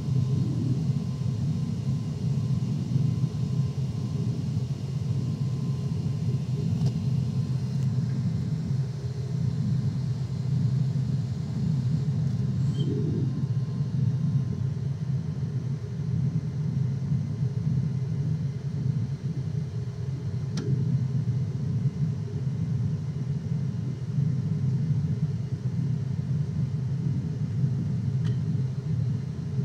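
Airliner cabin noise: a steady low engine drone and rush heard from inside the passenger cabin after take-off.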